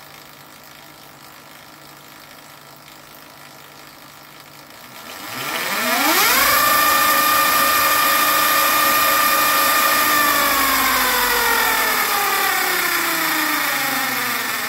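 Golden Motor HPM72 5 kW mid-drive electric motor spinning the chain-driven rear wheel of a converted KTM RC125 with no load: a whine that rises quickly about five seconds in, holds steady for several seconds, then falls away slowly as the wheel winds down. A faint steady hum comes before it.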